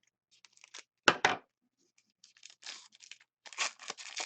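A trading card pack being opened: two loud, sharp rips about a second in, then a run of crinkling and rustling of the wrapper.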